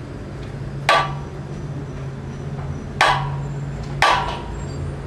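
The pendulum-driven lever of a two-stage mechanical oscillator, a weighted steel arm, knocking down onto its metal stop with each swing. Sharp metallic knocks one to two seconds apart, each ringing briefly.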